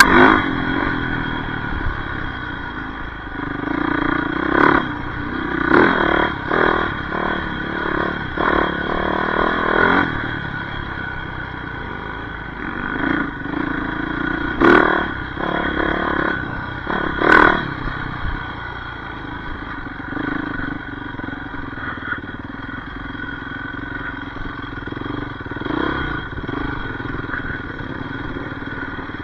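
Yamaha YZ450F four-stroke single-cylinder dirt bike engine running while being ridden off-road, the revs rising and falling with the throttle, with a few sharp knocks from the bike over rough ground. It runs more evenly in the last part.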